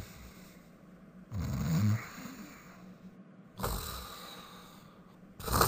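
A man snoring: a low rasping snore on the in-breath, then a long breathy out-breath, with the next breath starting near the end.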